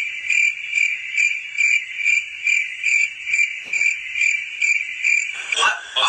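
Crickets chirping in an even rhythm, about two and a half chirps a second, the stock 'awkward silence' sound effect, stopping about five seconds in.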